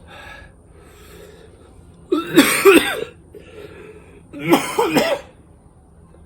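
A person coughing hard twice, about two seconds apart, each cough lasting under a second: a reaction to the burn of a superhot pepper tincture.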